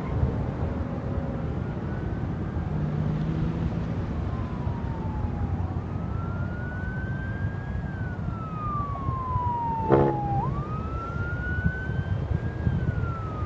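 2012 VW Golf MK6's 2.5-litre five-cylinder running steadily at idle through a single Magnaflow muffler and catless test pipe, a low rumble. An ambulance siren wails over it from a few seconds in, rising and falling slowly, and a short sharp knock sounds about three-quarters of the way through.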